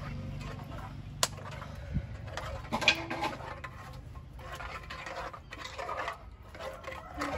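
Metal spoon knocking and scraping in an aluminium pot as food is stirred over a wood fire, with a few sharp clicks.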